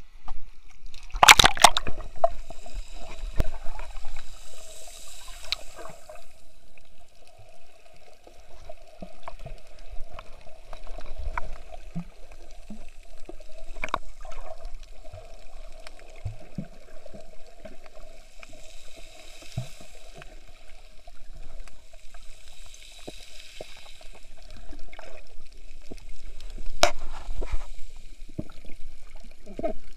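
Underwater sound through a camera held below the surface while snorkelling: muffled sloshing and bubbling water with scattered clicks and knocks over a steady hum. A splash about a second in as the camera goes under.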